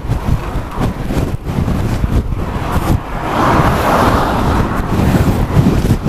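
Strong, gusty wind buffeting the microphone of a bike-mounted camera. A car overtakes about three seconds in, its tyre and engine noise swelling and then passing on ahead.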